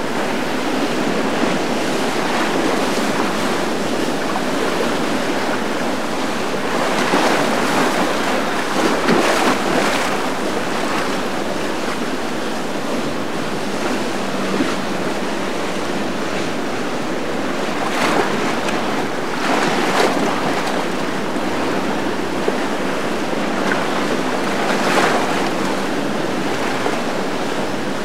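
Churning water and wind buffeting the microphone, a steady rushing noise with brief louder surges several times.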